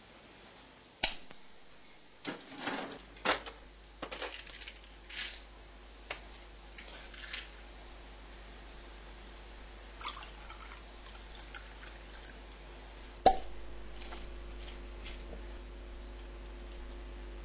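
Handling noises: a run of knocks, clicks and short rustles over the first several seconds, then a quieter stretch with a faint click or two. About thirteen seconds in comes a single sharp click, after which a steady electrical hum carries on.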